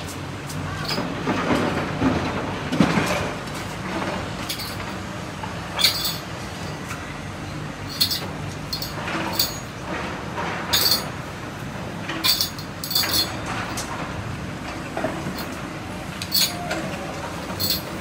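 Excavator engine running steadily under irregular sharp clinks and clanks of broken concrete and metal debris as it works the demolition rubble.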